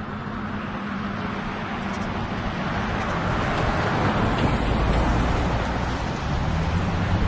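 Street traffic: a car passing on the road, its tyre and engine noise swelling to a peak about halfway through and easing off after.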